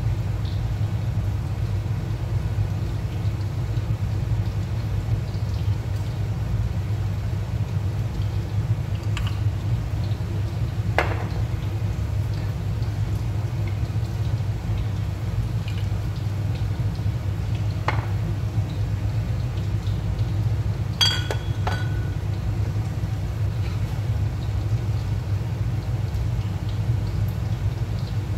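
Steady low rumbling hum throughout, with a few light clicks and a short ringing clink about twenty-one seconds in, as sauce bottles are handled and tipped over a ceramic bowl.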